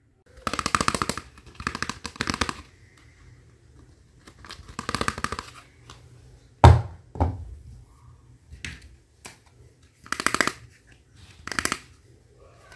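Hard plastic toy parts being handled: several short rustling, scraping noises, and a sharp knock with a thud about six and a half seconds in as the plastic toy stove is set down on the table, then a smaller knock.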